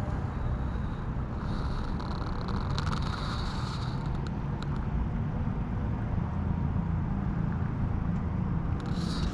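Steady low outdoor rumble of parking-lot ambience, with a few faint light clicks.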